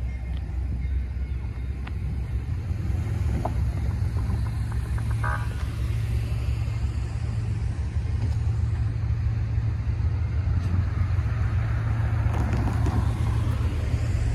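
Low, steady diesel rumble of a slowly approaching CSX freight locomotive, growing a little louder in the second half.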